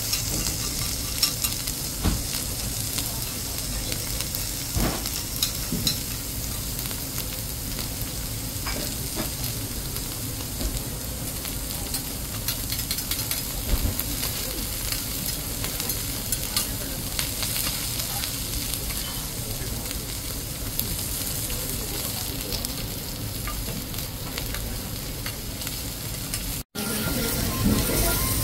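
Kobe beef frying: a steady sizzle full of small crackles and occasional louder pops. It cuts out for an instant near the end, then carries on.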